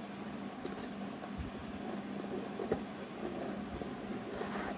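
Scissors snipping and cutting through the tape and cardboard of a shipping box, with a few small clicks and a brief scraping cut near the end, over a steady low background hum.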